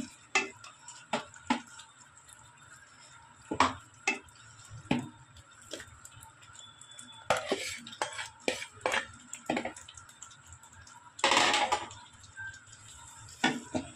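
Metal spoon and spatula clinking and knocking against a metal kadai and plate as whole small brinjals are tipped into thick masala gravy, in scattered short knocks with one longer, louder clatter near the end.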